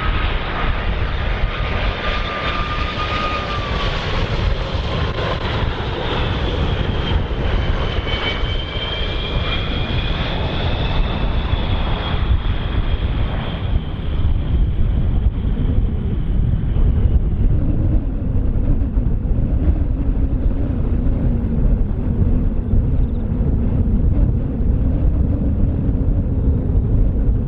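Boeing 747-400F freighter's four jet engines on landing. A high whine falls in pitch as the aircraft passes and fades over the first half, leaving a steady, loud low rumble with a low hum for the rest.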